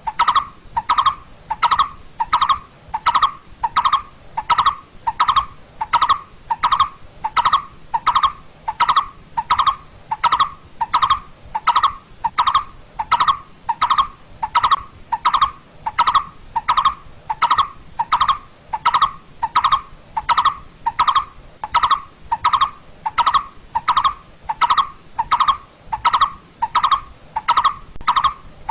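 Coppersmith barbet calling: a loud, monotonous series of short hollow 'tuk' notes at a little under two a second, evenly spaced and unbroken.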